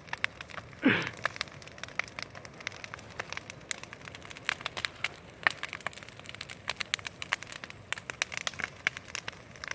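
Large bonfire crackling, with many irregular sharp pops and snaps. A short sound falling in pitch comes about a second in.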